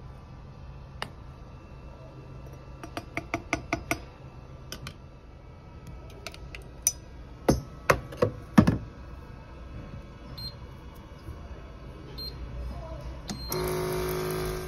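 Glass coffee jar and stainless steel Turkish coffee pot being handled at an Arçelik Turkish coffee machine: a quick run of light clicks, then four sharp knocks a little over halfway through. Near the end the machine gives a loud, steady buzz for about a second.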